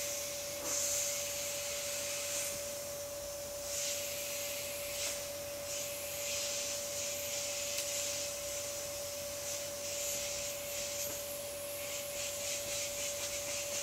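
Air hissing steadily out of the open valve of an inflatable vinyl swan pool float as it deflates, swelling and easing, and turning into a rapid flutter near the end.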